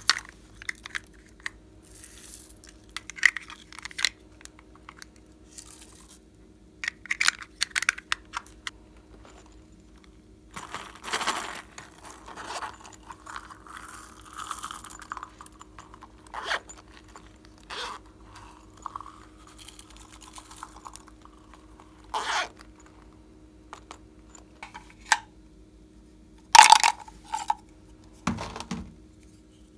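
Small plastic containers being handled over trays of slime: scattered clicks, snaps and rattles as lids open and sprinkles, glitter and beads are tipped out, with a longer rustling stretch in the middle and a louder burst of clicks near the end.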